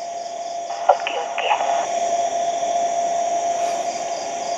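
Steady hiss with a thin steady tone under it. There is a sharp click about a second in, followed by a few brief faint sounds.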